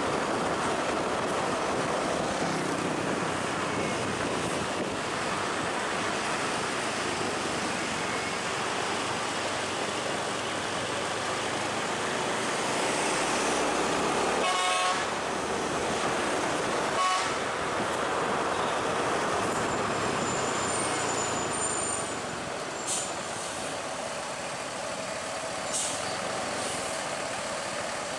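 Heavy road vehicles running, with a steady engine and road noise throughout. About halfway through, a vehicle horn toots twice in short blasts.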